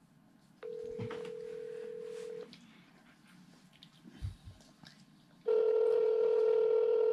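Phone-call ringback tone coming from an iPhone XS Max's speaker while it calls Verizon's 611 line. Two rings of a steady tone, each about two seconds long; the second ring, about five seconds in, is much louder.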